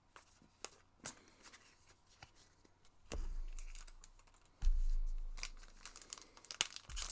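Foil trading-card booster pack wrapper being crinkled and torn open, with light clicks of handling at first and a louder stretch of crinkling and low handling rumble from about three seconds in.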